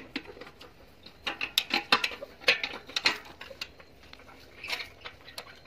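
Irregular metallic clicks and taps of a wrench working the bolts on a metal pump flange, in a cluster of strikes between about one and three and a half seconds in and a few more near the end.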